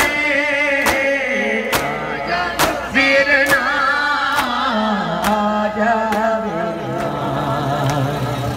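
Male noha lament sung by a reciter, with a crowd of mourners beating their chests in unison (matam) as sharp slaps a little under a second apart, which grow fainter near the end.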